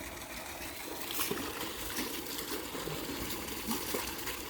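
Water running and trickling steadily as an elephant is bathed, with a few sharper splashes.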